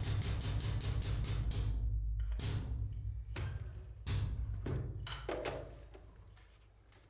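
Hose crimping press running with a steady low hum and rapid, even clicking of about six a second, stopping about two seconds in. A few separate knocks and clunks follow as the crimped fitting is handled.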